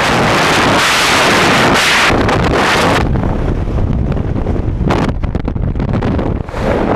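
Freefall wind rushing hard over the camera microphone, then dropping off sharply about three seconds in as the main parachute opens and the fall slows; lighter, gusty wind buffeting follows under the canopy.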